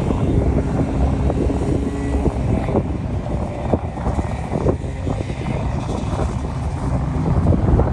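Race car engine running out on the course, heard through wind buffeting the microphone.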